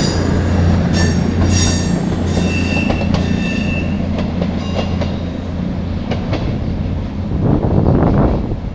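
Virgin Trains Class 221 Super Voyager diesel multiple unit running along the platform: a steady low diesel drone, with high wheel squeal in the first few seconds. Wind buffets the microphone near the end.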